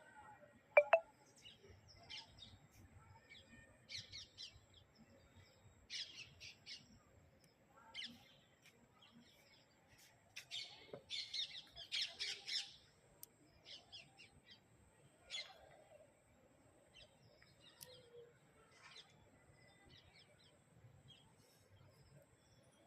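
Birds chirping on and off in short high calls, with one louder, sharp call about a second in and a busier run of chirps midway.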